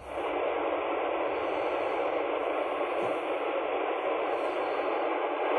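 Steady hiss of static from a CB radio's speaker on an open channel. No station is answering the call.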